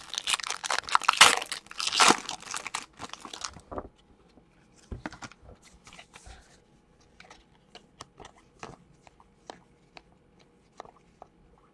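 A Prizm basketball card pack's wrapper being torn open and crinkled by hand for about the first four seconds. Then the cards inside are slid and shuffled through, a scattering of light clicks and ticks.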